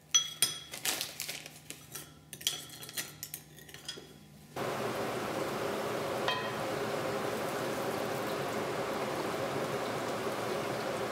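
A metal spoon clinks against a ceramic bowl, stirring sauce. About four and a half seconds in, this gives way to the steady sizzle of eggplant strips frying in hot oil in a wok, with one light knock partway through.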